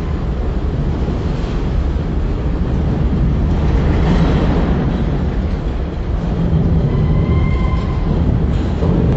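Freight train of enclosed autorack cars rolling past at speed, a steady rumble of wheels on rail. About seven seconds in, a brief high squeal rises over it, typical of wheel flanges rubbing the rail.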